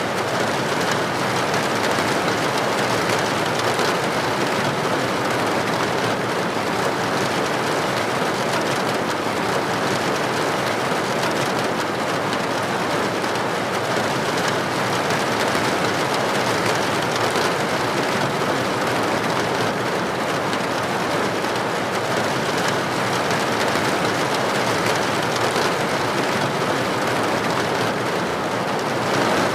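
Steady heavy rain falling on a window or roof: a dense, even hiss of drops with no breaks.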